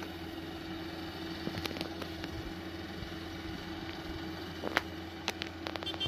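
Rural King RK55 tractor running steadily while pulling a Case 3450 round baler, a constant engine drone with a held hum. A few sharp clicks come through about a second and a half in and again near the end.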